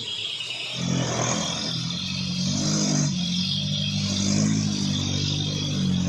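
Toyota Dyna truck engine running under load, labouring on an uphill climb; its note comes in louder about a second in and then holds steady.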